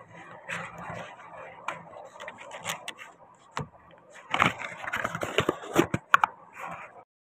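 Hands handling and pressing together rubber casting molds in plastic card frames: irregular scraping and rubbing with scattered sharp clicks, growing louder with a cluster of clicks in the second half, then stopping abruptly near the end.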